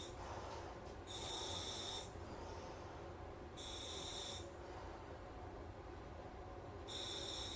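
Breathing through a SMACO full-face dive mask's demand regulator on surface air: a hiss of air with each inhalation, about every three seconds.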